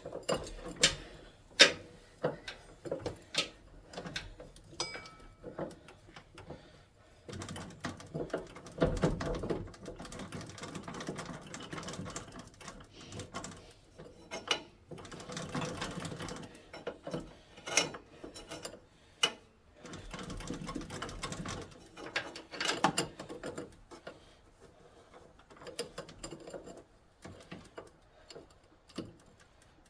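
Steel #41 roller chain clicking and rattling as it is fed by hand over a sprocket, with irregular metal clicks and some longer stretches of rattling.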